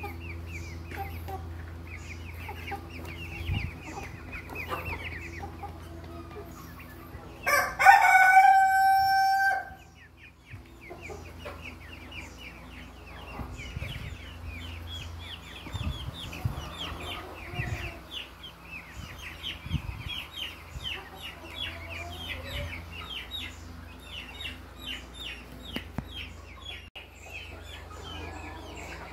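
A rooster crows once, loudly, for about two seconds starting about eight seconds in, over chickens clucking and a steady patter of short, high chirps.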